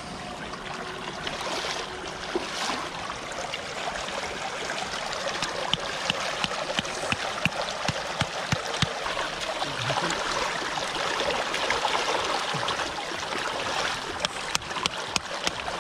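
Shallow water running and splashing over a plastic sheet in a narrow channel, a steady trickling rush, with sharp knocks near the end as bamboo stakes are hammered into the wet ground.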